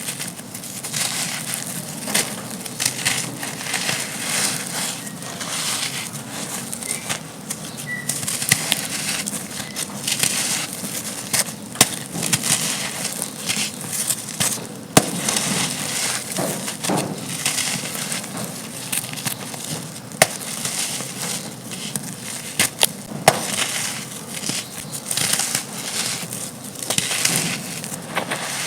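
Dry, gritty chunks of black sand-cement being crumbled: a dense, continuous crackle with many sharp snaps throughout.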